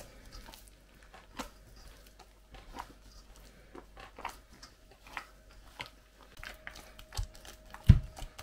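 A hand kneading soft, wet yeast dough with beaten egg whites in a metal bowl: irregular squelching slaps, with a couple of heavier thumps near the end.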